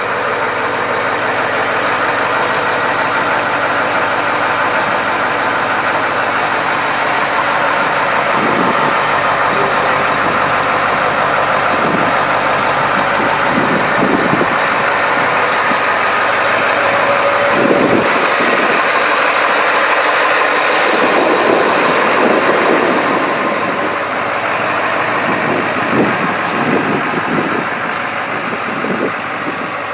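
Diesel engine of a 1986 Ford D84 military wing de-icer truck running steadily, with occasional low bumps in the second half.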